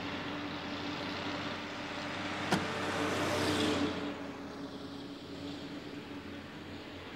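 A tanker truck passing along the road close by: its engine and tyre noise swells to a peak about three and a half seconds in and then fades away. A sharp click comes just before the swell peaks.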